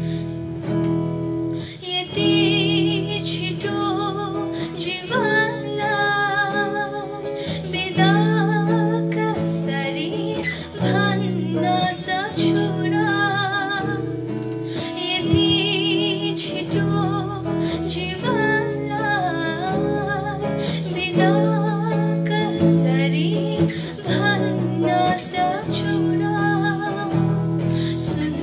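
A girl singing a Nepali worship song, holding notes with vibrato, over an acoustic guitar accompaniment.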